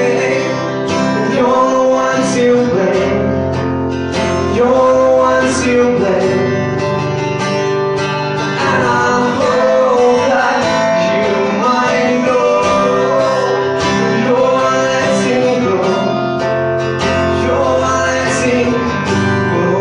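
Live acoustic song: an acoustic guitar played under a male voice singing.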